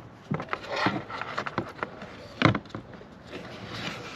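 Car interior trim parts being handled and fitted back into place: scattered clicks and rubbing, with one louder knock about two and a half seconds in.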